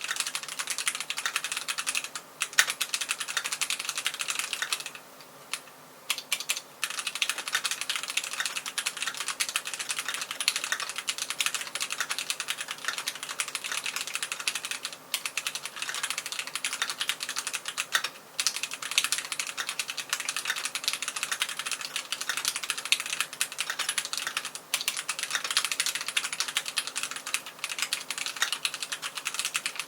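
Continuous fast typing on a Keychron Q1 Knob gasket-mounted mechanical keyboard with red linear switches and PBT OSA-profile keycaps: a dense stream of keystroke clacks, broken by a few short pauses, the longest about five seconds in.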